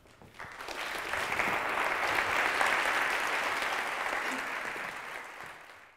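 Audience applauding, building up over the first second and tapering off toward the end.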